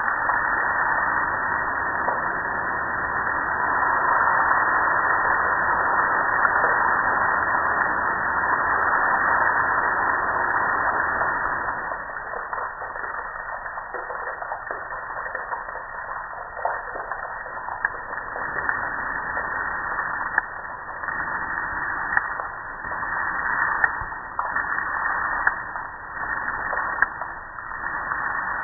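Water spraying onto a soapy gas grill in a steady rush. About twelve seconds in the spray stops, and water keeps dripping and splashing off the grill in scattered ticks and patters.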